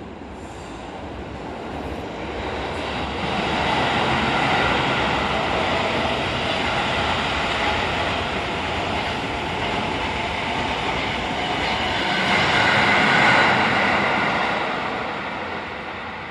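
A Seibu 9000 series electric train passing close by: running noise of wheels on rail and the motors. It grows over the first few seconds, stays loud while the cars go past, and fades near the end.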